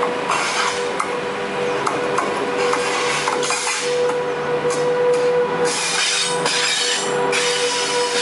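SS8 electric locomotive hauling a passenger train, approaching and passing at speed. Its wheels clatter and knock on the rails, and the rushing noise grows fuller as it draws level near the end. A steady hum runs underneath.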